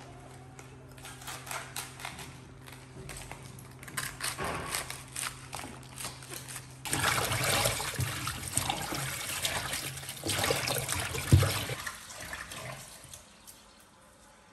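Crisp crackling of a head of cabbage being cut and its leaves broken apart, then, about halfway through, tap water running into a stainless steel sink over cabbage leaves as a hand swishes them. The water fades out near the end.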